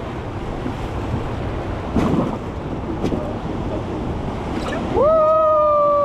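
Rushing whitewater of an artificial rafting channel, with a knock about two seconds in and a person's long, held call starting about five seconds in.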